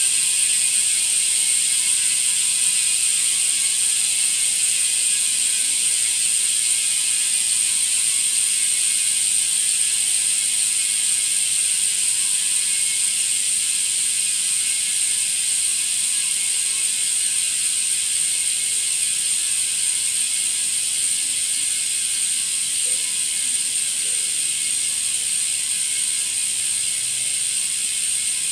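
Bicycle rear-wheel freehub on an AMP Prime 45c wheel ticking as the lifted wheel spins freely, its pawls clicking so fast they merge into a steady buzzing ratchet. The buzz slows gradually and grows a little quieter as the wheel winds down.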